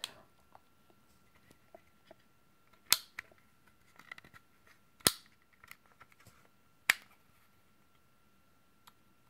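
Safety of a Daisy 880 air rifle being pushed between safe and fire: three sharp clicks about two seconds apart, with fainter ticks and handling sounds between. Only the safety spring is fitted, without the detent ball, so it works but is not smooth.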